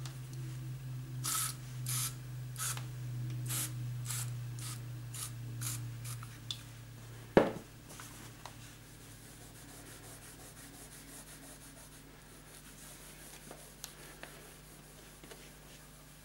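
Aerosol furniture polish (Pledge Multi-Surface) sprayed in about nine short bursts in quick succession, followed about seven seconds in by a single loud knock. After that comes a faint rubbing as a cloth wipes the polish over a wood-finish surface.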